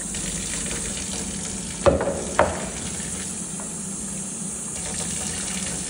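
Tap water running steadily and splashing onto a plastic coffee-machine drip tray, with two sharp knocks about two seconds in.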